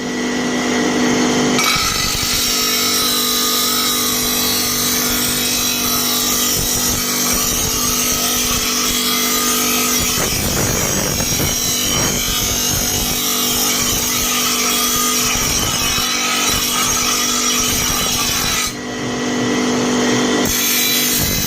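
Electric grinder running steadily against steel, a continuous rasping grind with a brief drop near the end.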